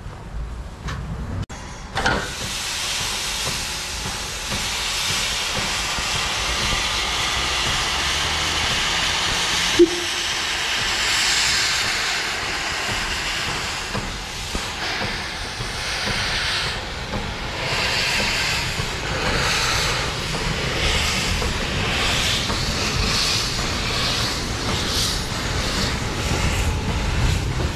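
Narrow-gauge steam locomotive hissing loudly as steam blows off, the hiss starting suddenly about two seconds in. In the second half it turns into a steady pulsing of chuffs, about one a second.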